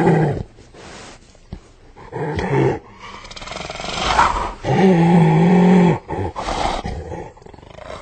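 Striped hyena vocalizing: a string of short rough calls, then one long wavering call lasting over a second about halfway through, followed by more short calls.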